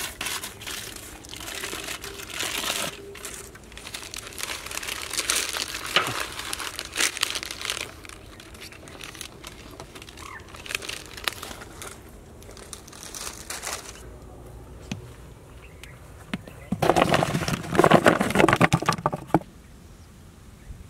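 Foil wrappers of Cadbury Dairy Milk bars crinkling as they are peeled off and the chocolate is handled over a pot of broken pieces. The crinkling is busiest in the first half. A louder spell of crinkling and cracking comes about three-quarters of the way through.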